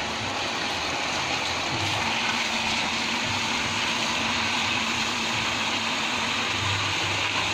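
Mains water under pressure rushing and spraying from an open fitting on a service pipe: a steady hiss.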